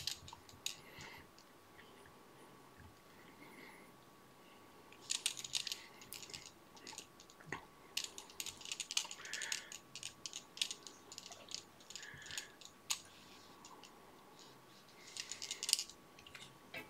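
Light clicking and crinkling from fingers handling fly-tying materials as oval tinsel is wound onto a salmon fly hook in a vise, coming in scattered clusters. A faint steady tone runs underneath.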